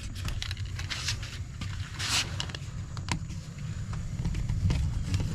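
Scattered light clicks and brief scrapes from hands working a window screen frame and its spline and mesh, over a steady low rumble.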